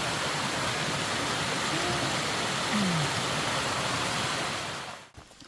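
Small waterfall and stream water rushing steadily, cutting off abruptly near the end.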